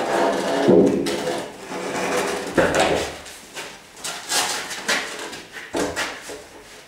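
Heavy wooden beam knocking and scraping as it is lifted and shifted into place against a masonry wall, with a few sharp knocks, the loudest about a second in and near three seconds in.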